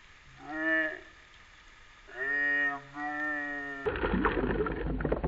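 Three drawn-out, low voice-like notes, each under a second long. About four seconds in, a sudden cut brings a dense jumble of clicks and rattles.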